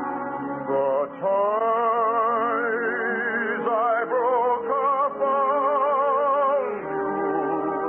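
Operetta music: a singer holds long notes with a wide vibrato over orchestral accompaniment, the melody stepping to a new note every second or so. The sound is thin and dull, missing its treble, as in an old radio transcription.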